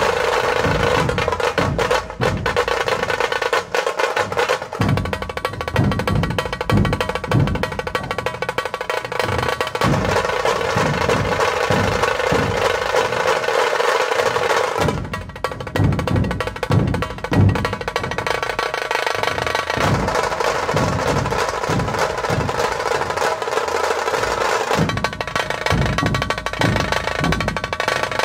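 Two tashas, Maharashtrian kettle drums, played together with thin sticks: fast continuous rolls with a steady ringing tone over a rhythmic pattern of heavier accented strokes. The rolling briefly drops out about halfway through, then picks up again.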